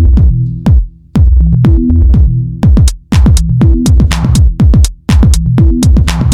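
Electronic dance music with a heavy, steady drum-machine beat: booming kick drums that drop in pitch, with sharp hi-hat and clap strokes over them.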